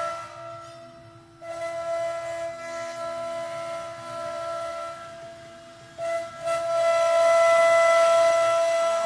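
CNC router spindle whining at a steady high pitch while its bit carves a wooden cylinder held in the 4-axis rotary, with the hiss of the cut under the whine. The sound dips twice, about a second in and just before six seconds, and each time comes back louder.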